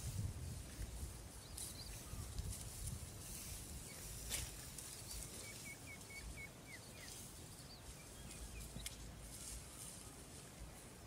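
Faint outdoor ambience: a low wind rumble, scattered light rustles and clicks with one sharper click about four seconds in, and a short run of high bird chirps in the middle.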